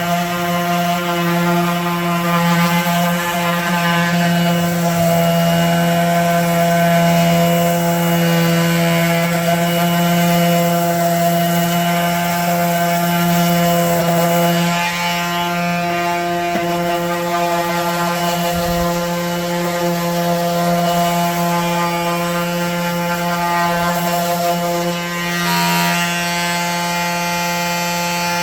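Electric hand sander running steadily, rough-sanding a wooden table: a constant motor hum over the scratch of the pad on the wood, with a brief dip about 25 seconds in.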